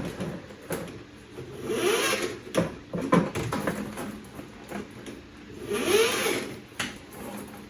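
A drain snake (auger) being worked down a clogged sink drain. A steady mechanical hum runs underneath, with two louder surges about two and six seconds in.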